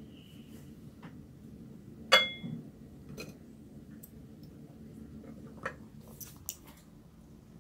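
Tableware being handled on a table: one sharp clink with a brief ring about two seconds in, then a few fainter taps and clicks over a low hum.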